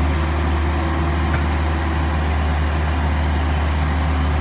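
Kobelco SK135SR excavator's diesel engine running steadily, a deep even hum with no revving or digging noise.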